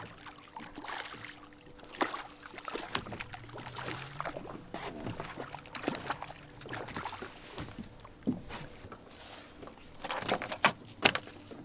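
Water lapping and sloshing against a boat hull, with irregular knocks and clatter of handling on board and a faint steady hum underneath. A cluster of sharper, louder knocks comes near the end.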